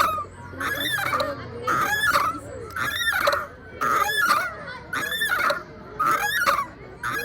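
Chain swing creaking very strongly as it swings back and forth, a squealing creak about once a second.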